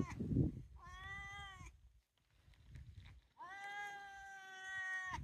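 A cat meowing twice: a short meow about a second in, then a longer, drawn-out meow from about three and a half seconds. A low, muffled rustle or bump just at the start is the loudest sound.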